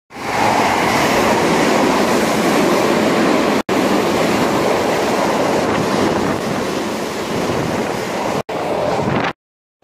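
Commuter train running past a station platform at close range: a loud, steady rushing rumble of wheels and car bodies. It cuts off abruptly for an instant twice and stops shortly before the end.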